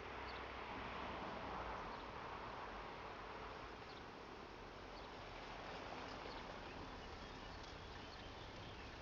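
Faint outdoor background: a steady low hiss with a few short, faint high chirps scattered through it. No siren tone is heard.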